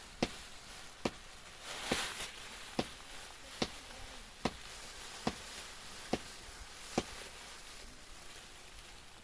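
A series of sharp knocks, evenly spaced at a little more than one a second, nine strikes that stop about seven seconds in.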